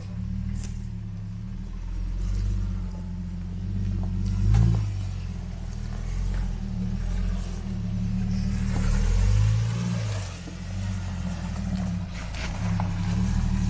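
A 4x4's engine working at low speed as the vehicle crawls up a step on a rough off-road track, the revs rising and falling. There is one sharp knock about four and a half seconds in.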